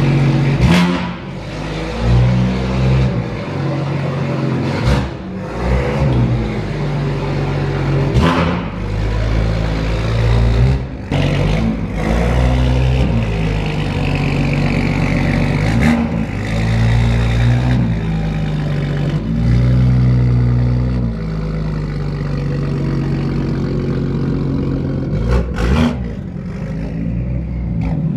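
BMW M2's turbocharged straight-six through a straight-piped exhaust, revved up and down over and over, with about seven sharp cracks between revs. It settles to steadier, lower running in the last few seconds.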